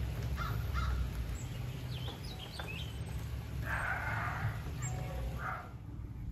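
Wild birds calling: a few short chirps in the first three seconds, then a longer, harsher call about four seconds in and a short one soon after, over a steady low rumble.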